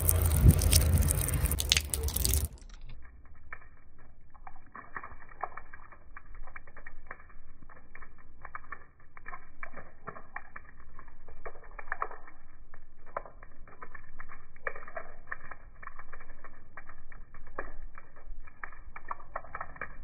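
Water dripping and splashing onto a wet concrete ledge. It opens with a loud splash lasting about two and a half seconds. After that comes a dull, muffled crackle of many small irregular ticks from the drops.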